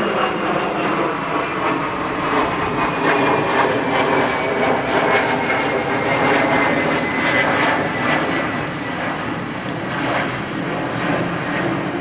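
An aircraft engine drones steadily overhead, its pitch slowly falling as it passes.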